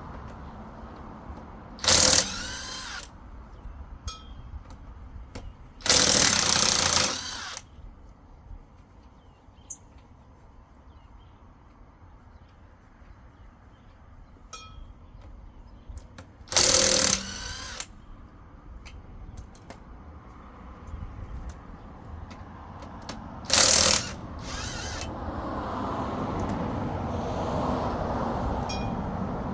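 Cordless impact wrench hammering on wheel lug nuts in five short bursts, each about half a second to a second and a half long, with pauses between them.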